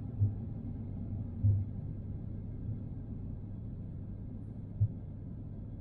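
Airbus A350 cabin noise on approach: a steady low drone with a faint hum, broken by three short, low thumps.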